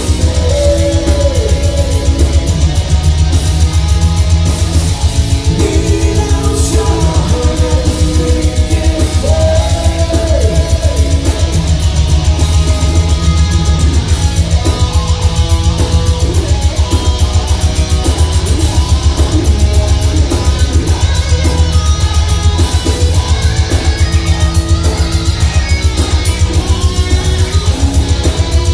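Heavy metal band playing live: distorted electric guitars over drums with a fast, steady kick-drum pulse.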